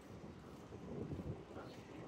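Low, uneven rumble of wind on the microphone, with soft thuds of footsteps on the pavement.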